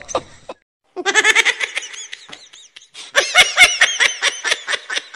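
Laughter in quick, high-pitched repeated bursts, starting after a brief total dropout about half a second in.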